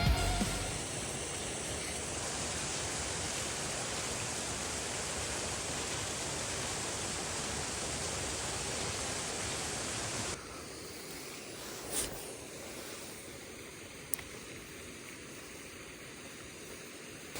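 Steady rushing outdoor noise with no clear pitch, like running water or wind. About ten seconds in it drops abruptly quieter, and two faint short clicks follow.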